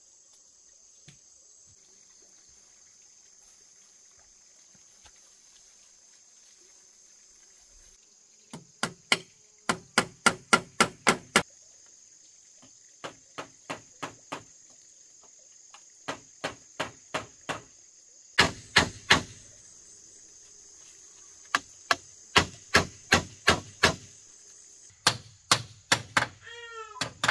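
Repeated sharp chopping strikes of a hand tool cutting into grass and soil, in runs of three to nine blows at about three a second, starting about eight seconds in. A steady high drone of insects runs underneath.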